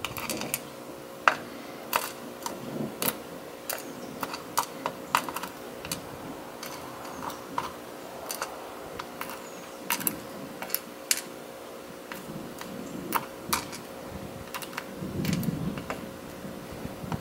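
Irregular light clicks and taps of metal tweezers against small lock pins and springs in a plastic pinning tray, as the pins are nudged into line.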